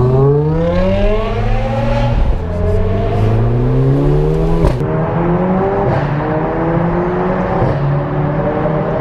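Mercedes A45 AMG's turbocharged four-cylinder engine with an aftermarket exhaust, accelerating hard. The engine note rises in pitch, then drops suddenly at each upshift, several times over.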